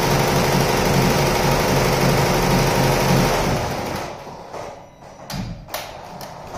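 Multi-head Zing embroidery machine stitching, its needle heads running fast and steady. About halfway through it winds down and stops, a few sharp clicks come while it is stopped, and it starts up again at the end.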